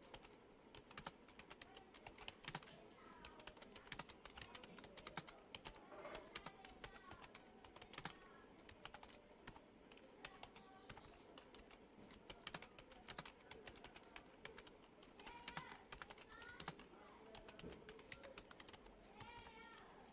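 Rapid, irregular clatter of computer keyboard keys being typed on fast and continuously, faint and close.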